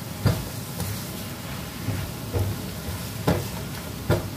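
Stir-frying in a wok: a spatula scraping and turning vegetables and pork over a steady sizzle, with sharper knocks of the spatula against the pan about once a second.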